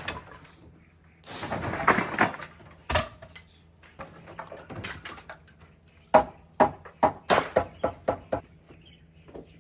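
Scraping and knocking as an old woodshed roof of asbestos-cement sheets is being pulled apart: a stretch of scraping about a second in, a single knock near three seconds, then a quick run of sharp knocks and cracks from about six to eight seconds. The rotten underlay beneath the sheets snaps at a light bend.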